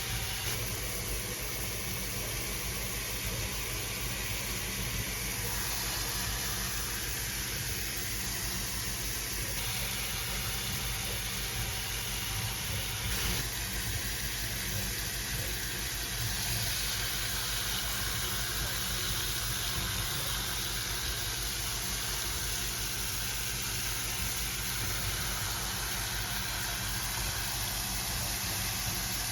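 Shower running: a steady spray of water hissing, its tone shifting a few times as the stream falls on different surfaces.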